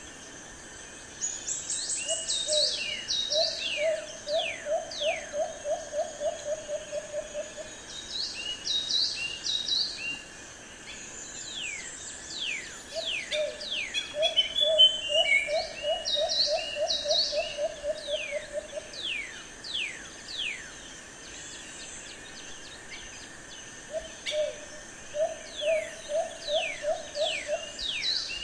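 Bird chorus: a bird gives low, quick runs of about a dozen hooting notes, three times, while other birds whistle and chirp higher above with short downslurred notes.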